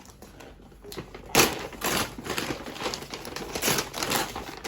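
Gift wrapping being ripped open and crumpled by hand: a quiet moment, then a run of irregular crinkling rustles from about a second in, the loudest right at their start.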